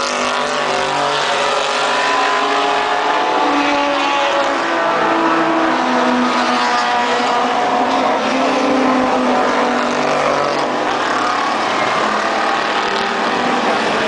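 Historic racing car engines, a Ferrari among them, running hard as the cars pass along the circuit. Several engine notes step up and down in pitch with the revs, with no let-up in loudness.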